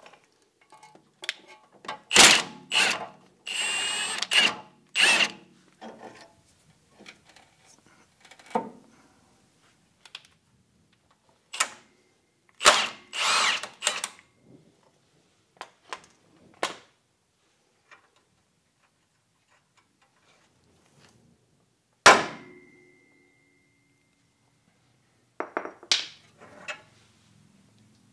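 Milwaukee Fuel cordless impact wrench rattling in short bursts, spinning off the steering linkage nuts, with scattered clanks of tools on metal. About 22 seconds in, a single hard metal-on-metal strike rings on for a couple of seconds.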